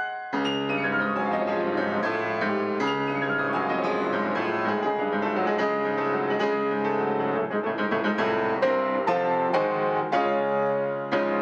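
Fazioli F278 concert grand piano played fast and full: dense runs and chords over held bass notes, with a deep bass note struck just after the start.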